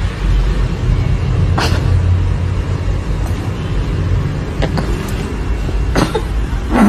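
Domestic cat purring loudly close to the microphone: a steady low rumble. A few faint clicks, and a brief wavering pitched sound right at the end.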